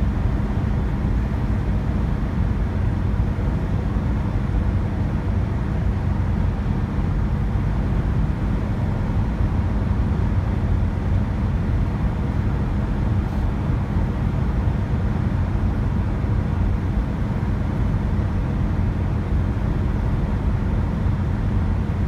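Steady road and engine noise heard inside a car's cabin while cruising at highway speed, a low, even rumble with a faint constant hum.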